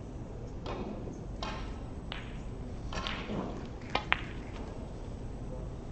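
Snooker balls clicking: a few soft knocks, then two sharp ringing clicks close together about four seconds in.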